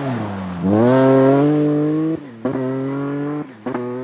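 Rally car engine accelerating hard, the revs climbing and then broken by two quick upshifts, about two and about three and a half seconds in.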